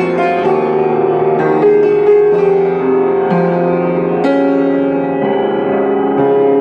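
Piano music: a slow melody of single notes and chords, each struck and left to ring.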